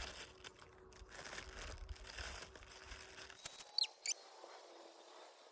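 Plastic packaging rustling and crinkling with small clicks as a new fishing rod and reel combo is unwrapped. Near the end it goes quieter, with two short, high, falling chirps.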